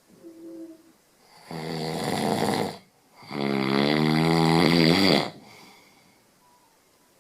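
Loud snoring: two snores in a row, the second longer and wavering in pitch, after a faint short sound near the start.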